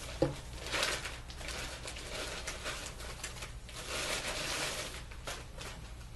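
Thin white wrapping sheet rustling and crinkling in irregular bursts as it is unwrapped from a camcorder by hand, with a short click near the start.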